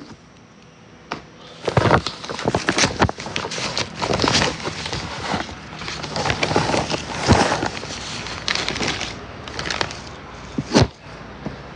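Loud, close crinkling and rustling of a rice packet's wrapping as it is handled and pulled open, starting about two seconds in and easing off near the end, with one sharp crack about a second before the end.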